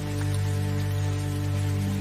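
Soft, calm instrumental music of sustained held notes over a low drone, with a light hiss of rain or running water beneath it.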